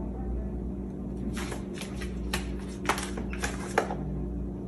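A cat eating at its food bowl: a run of short sharp clicks and smacks over a second or two, over a steady low hum.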